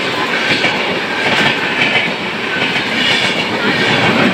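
Express passenger train's coaches running through a station at speed, passing close by: a loud, steady rush of wheel and rail noise.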